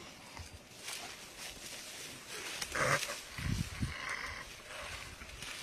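Leopard and spotted hyena fighting over a warthog they have pulled down: a few short, rough animal calls, the loudest about three seconds in.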